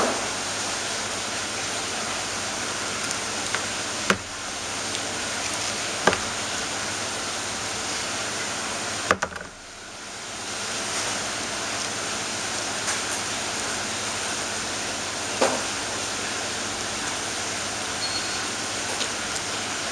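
Steady hiss of background noise, with a few sharp clicks as the hands handle the crab bait, wire needle and hook. After a click about nine seconds in, the hiss drops away and slowly comes back.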